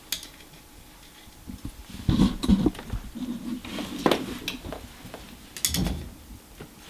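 Clicks and knocks of a new carbon brush and its holder being pushed into place and handled on a washing machine motor. There is a cluster of knocks about two seconds in, a sharp click about four seconds in, and more knocks near six seconds.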